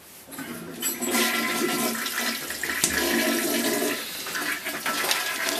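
Toilet flushing: a rush of water that starts about a second in and keeps going.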